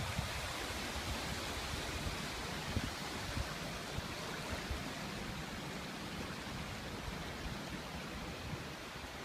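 Steady rushing noise of storm water, with a few faint low knocks.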